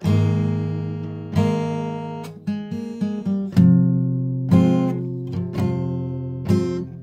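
Acoustic guitar strumming slow chords, roughly one a second. Each chord is left to ring and fade before the next, with a few quicker strokes about two and a half seconds in.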